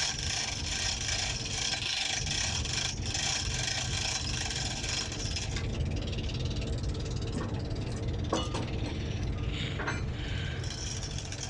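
Steady low machinery rumble with a hiss over it that drops away about halfway through, and a few light clicks in the second half.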